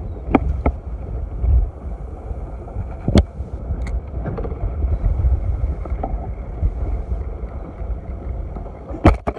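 Steady low rumble of wind and water on a small open fishing boat, with a few sharp knocks and clicks, the loudest one about three seconds in and a double click near the end.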